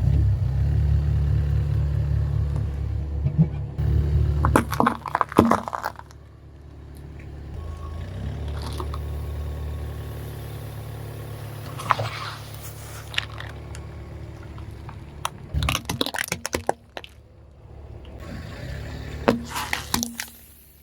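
A car engine running low and steady while the tyre rolls over objects and crushes them, with bursts of crunching and cracking several times.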